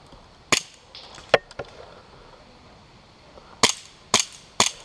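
Airsoft guns firing: about six sharp snaps, a few in the first two seconds, then three about half a second apart near the end.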